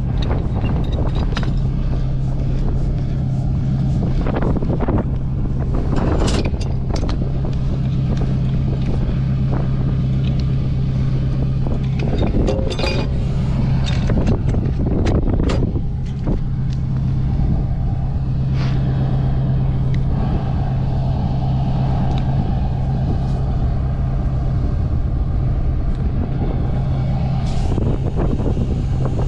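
An engine idling steadily, a constant low hum, with occasional sharp knocks and clanks from PVC drop pipe and fittings being handled.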